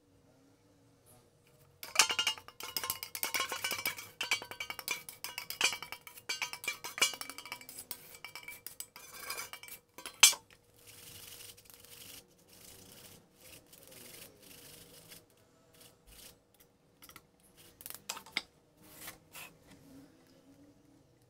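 Stainless-steel kitchenware scraping and clinking while batter is strained through a wire-mesh sieve over a steel pot: dense rapid metal scraping for several seconds, a sharp clank about ten seconds in, then softer rubbing and a few scattered clinks.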